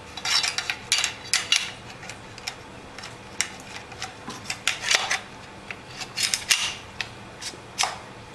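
Metal clicks and scrapes of a Kral Arms 12-gauge semi-automatic shotgun's barrel being fitted and slid into place during reassembly, in several bunches of short knocks and slides.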